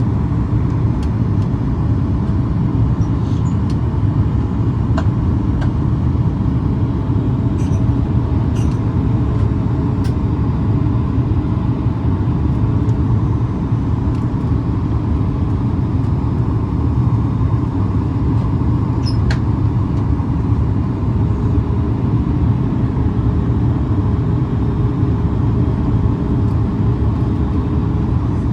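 Steady cabin noise of a Boeing 737 MAX airliner in flight: an even, loud rumble of engines and airflow with a faint steady hum above it.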